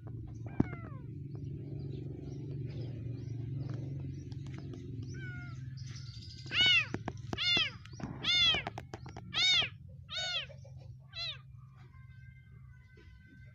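Kitten mewing while a young monkey holds it down: six loud mews, each rising then falling, about a second apart, starting about halfway through.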